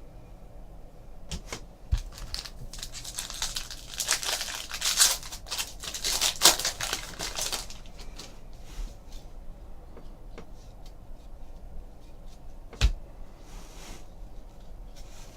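A foil Bowman Baseball card pack being torn open and its wrapper crinkled, a few seconds of dense rustling in the middle, with a sharp knock about two seconds in and another near the end.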